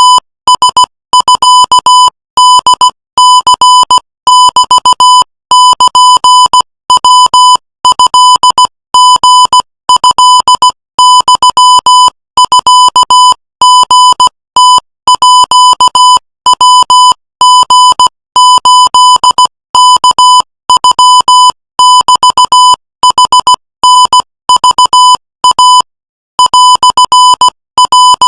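Morse code sent at 18 words per minute: a single steady, buzzy beep keyed on and off in dots and dashes, with short gaps between letters and one longer pause near the end.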